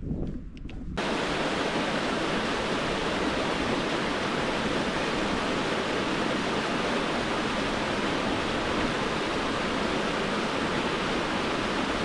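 Mountain-valley stream rushing over rocks, running high after the previous day's rain: a steady, even rush of water that cuts in abruptly about a second in.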